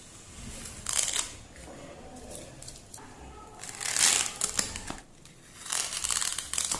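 Tape being peeled off a rubber clog-style shoe, in three noisy tearing pulls about a second in, around four seconds in and near the end, with crinkling of the removed tape.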